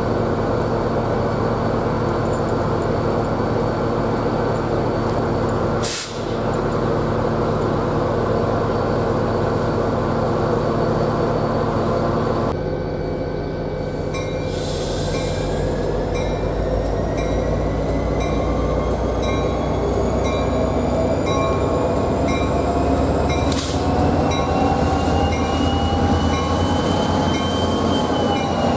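Diesel passenger train at a station: a steady engine hum, then from about twelve seconds in a whine that rises slowly in pitch as the train gathers speed. There are two brief sharp clicks, about six seconds in and near twenty-four seconds.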